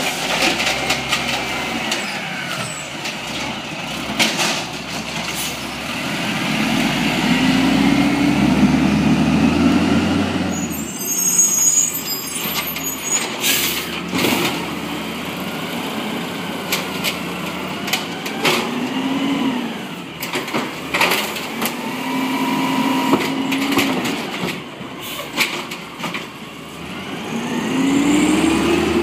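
Automated side-loader garbage truck at work: the lifting arm tips a cart with knocks and clatter, air brakes hiss about eleven seconds in, and the engine rises and falls in pitch as the truck moves off and builds speed near the end.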